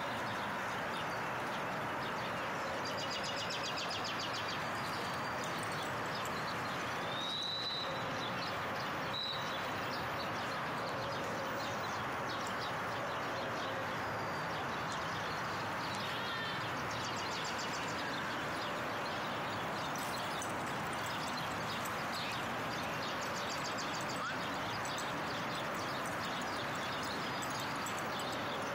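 Steady outdoor city background noise, an even hiss-like hum, with a few short high chirps a few seconds in and occasional faint knocks.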